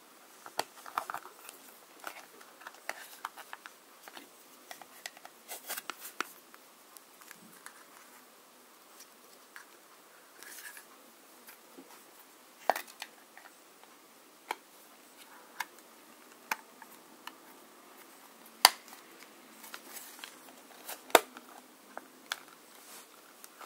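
Small plastic figure parts being handled and fitted together, with scattered light clicks and taps and a few sharper snaps, the two loudest near the end.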